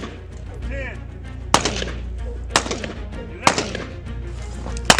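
Four single pistol shots fired at an unhurried pace, roughly one a second.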